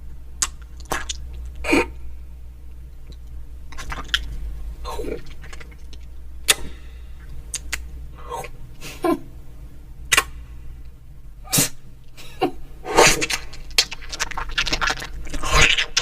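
A person making vocal sound effects with the mouth and breath, beatbox-style: sharp clicks and sneeze- and cough-like bursts at irregular intervals, with a denser run of breathy bursts from about three-quarters of the way in.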